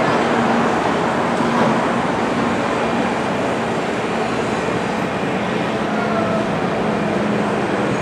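Steady running noise of a train in motion, with a low hum under it.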